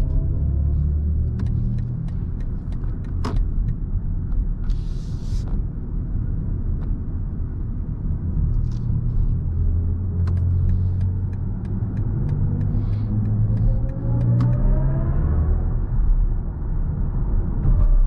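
Steady low road and tyre rumble inside the cabin of a BMW i7 electric sedan while driving. About three-quarters of the way in, a tone rises in pitch over a few seconds: the car's synthetic drive sound as it speeds up.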